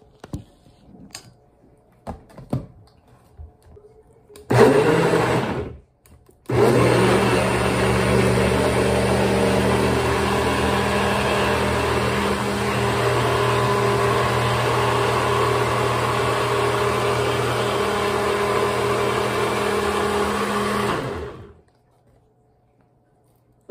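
NutriBullet personal blender blending a mango smoothie: a short pulse of about a second and a half, a brief stop, then a steady run of about fourteen seconds that cuts off suddenly. A few light knocks come before the motor starts.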